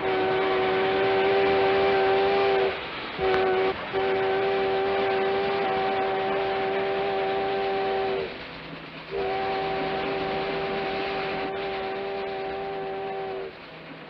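Steam locomotive whistle blowing a chord in four blasts, long, short, long, long, each sagging a little in pitch as it cuts off. Under it is the steady rushing noise of the running train.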